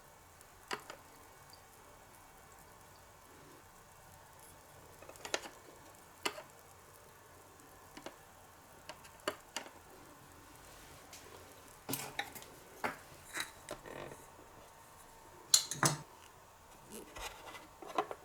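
Small utensils clicking and tapping against miniature toy dishes, in scattered light taps that come more often in the second half and peak in a louder clatter near the end.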